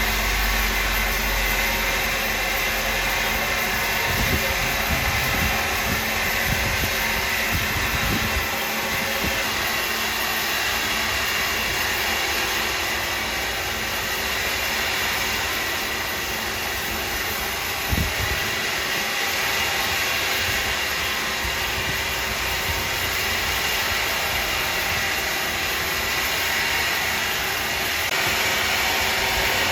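Sawmill machinery running with a steady whirring noise, with irregular low thuds for a few seconds near the start and a single knock about 18 seconds in.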